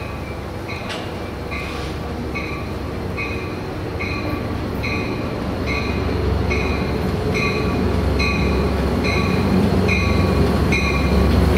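Amtrak F59PHI diesel locomotive approaching and drawing into the station, its low engine and wheel rumble growing steadily louder. A bell rings steadily about twice a second throughout.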